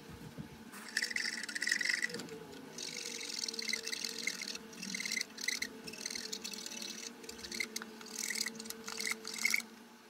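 Cotton swab scrubbing the rusted metal charging contact of a robot vacuum's charging dock, in repeated rubbing strokes with short squeaks. The rust on the contact is what stops the vacuum from charging.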